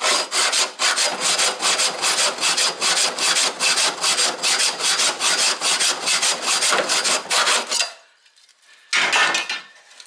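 Hand hacksaw sawing through the sheet steel of a Holden HK–HT–HG front mudguard, cutting out a rusted section. The blade rasps in steady strokes, about three or four a second, and stops after about eight seconds. A brief noise follows near the end.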